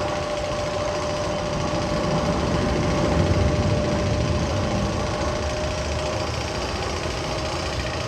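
A mechanical sound effect from the Magnum XL 200 roller coaster's tunnels: a steady machine-like rattling rumble with one held tone above it that fades out about six and a half seconds in.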